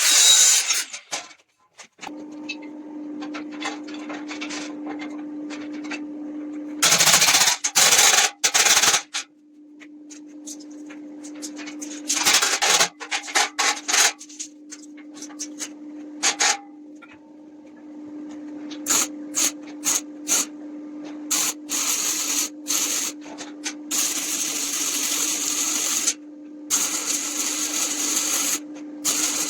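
A small electric power tool starts about two seconds in and runs with a steady hum. It gives repeated loud rasping bursts, typical of sanding or abrading wood.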